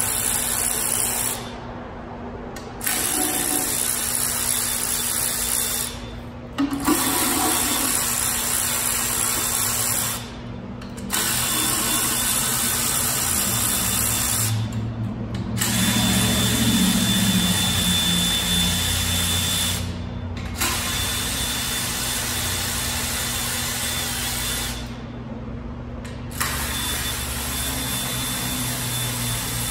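Cordless power tool running bolts out of a Toyota 2JZ engine's lower end, in runs of a few seconds each with short pauses between.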